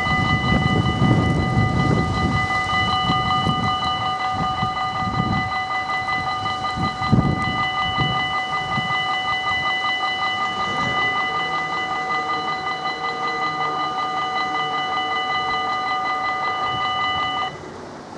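Level crossing warning bell ringing steadily with a fast electronic ding, then cutting off suddenly near the end as the barriers come down. Gusts of wind on the microphone rumble under it in the first half.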